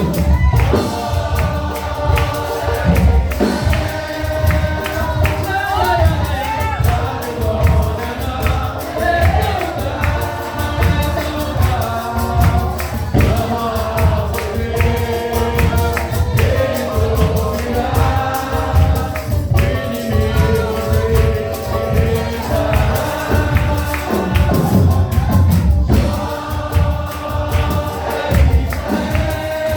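A vocal group singing a gospel song together over an accompaniment with a steady, strong bass beat.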